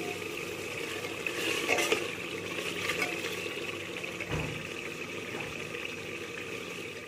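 Tomato and onion masala sizzling as it fries in a pressure cooker, a metal ladle stirring and scraping against the pot with a few light clinks. There is a soft low knock about four seconds in.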